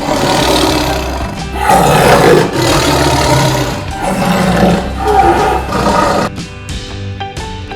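Tiger roaring several times in long, loud calls over background music with a beat; the roars stop about two-thirds of the way through, leaving the music.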